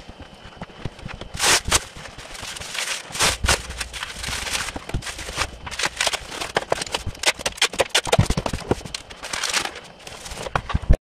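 Bubble wrap and plastic packaging crinkling and rustling while a cardboard shipping box is handled, with many quick crackles and light knocks.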